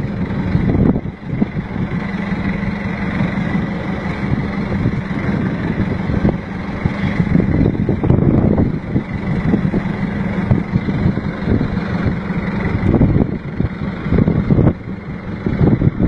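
Fishing boat's engine running steadily, with wind gusting on the microphone.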